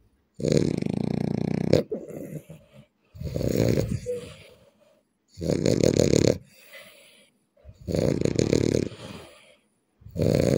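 A man snoring loudly: five snores about two seconds apart, each lasting about a second.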